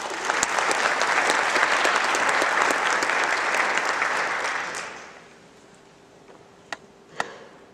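An audience applauding, fading away after about five seconds. Two sharp knocks follow near the end.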